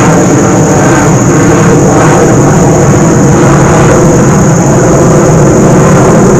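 A loud, steady engine drone with a thin, steady high tone above it.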